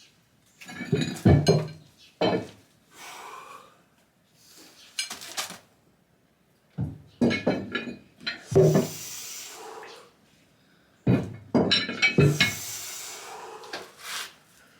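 Clanking and clinking of weights swinging on bands from a barbell during close-grip earthquake bench press reps, in clusters every few seconds, with a couple of longer hissing sounds between.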